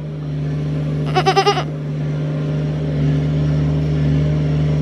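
A goat bleats once about a second in, a short quavering call, over a steady low motor drone.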